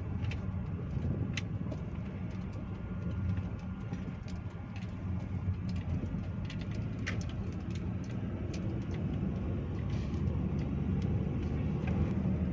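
Car driving at low speed, a steady low rumble of engine and tyres with a few scattered light clicks. No knocking is heard from the left front drive shaft, freshly fitted with new boots and a regreased joint; the mechanic says the noise is gone.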